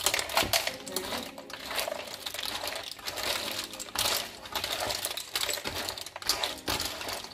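Mussel and clam shells clattering against a pan as they are stirred, a run of hard, irregular clicks and clacks.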